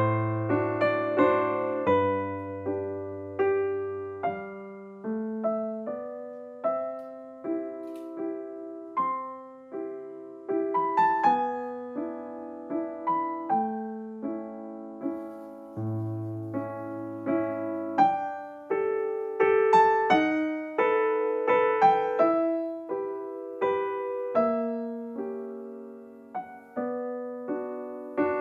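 Background music: solo piano playing a slow melody over chords, each note struck and fading away.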